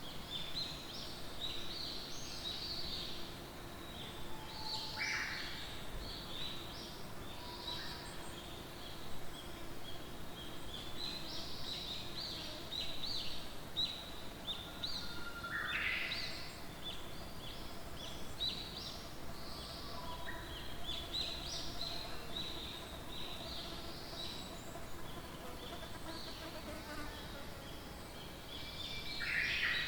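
Many birds chirping in a forest: a dense, continuous chatter of short high chirps, with a few louder, lower calls standing out about five seconds in, midway and near the end.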